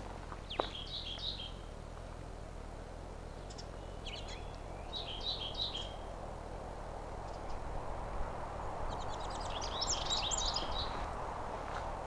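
A songbird singing three short, high trilled phrases, about a second in, around five seconds and around ten seconds, over a steady hiss that grows louder in the second half.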